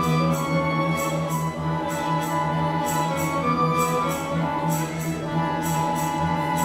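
Instrumental dance music with held tones over a low steady drone, and quick light clicks running over it.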